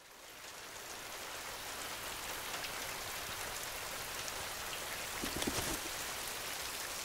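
Steady rain-like hiss that fades in from silence at the start and holds even, with a few faint rustles about five seconds in.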